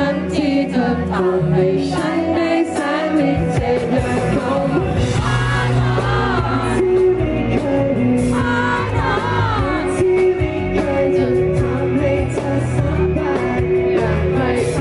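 Male vocalist singing a Thai pop song into a handheld microphone with a live band behind him, amplified through a PA. The backing grows fuller in the low end about three and a half seconds in.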